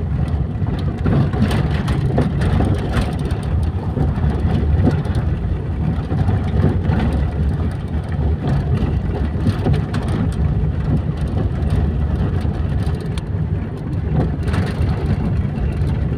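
A vehicle driving over a rough dirt road, heard from inside the cabin: a steady low rumble of engine and tyres, with scattered knocks and rattles over the bumps.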